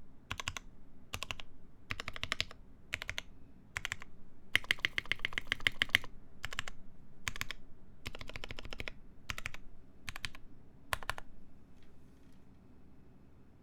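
Typing on a Dixie Mech Bauer mechanical keyboard with lubed Gateron Ink linear switches, a full POM plate and GMK keycaps. It comes in short runs of keystrokes with brief pauses between them and stops about eleven seconds in.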